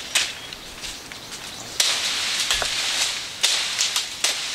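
Crackling and rustling in dry forest undergrowth, with a sharp snap just after the start and a louder, dense crackle from about two seconds in.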